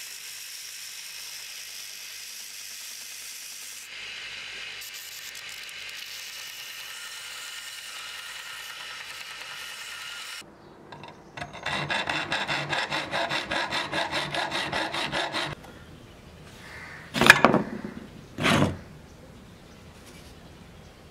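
Belt sander running with a cast brass guard held against the belt, a steady hissing grind. About eleven seconds in it gives way to about four seconds of rapid, even hand-sawing strokes, about five a second, followed by two short loud sounds a little over a second apart.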